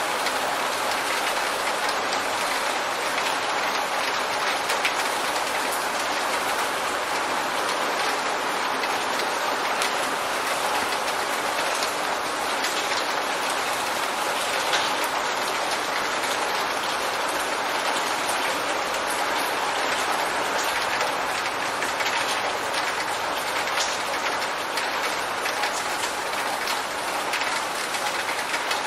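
Steady heavy rain: a dense, even hiss of falling drops with many small separate taps.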